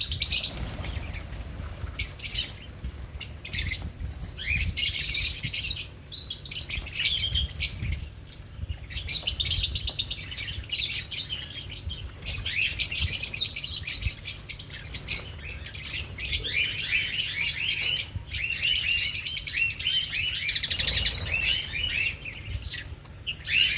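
A flock of pet lovebirds chattering: rapid high-pitched twittering and chirps that go on almost without pause, over a low rumble.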